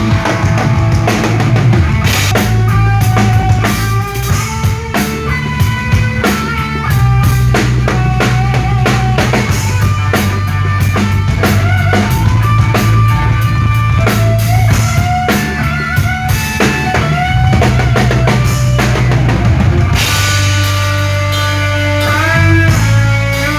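Live rock band playing loudly through a PA: drum kit with kick, snare and cymbals driving over bass and electric guitar. About three seconds from the end the drums drop back and the guitar carries on.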